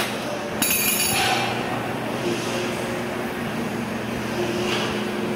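Steady room noise of a large gym hall with a low hum, and a sudden change in the sound about half a second in.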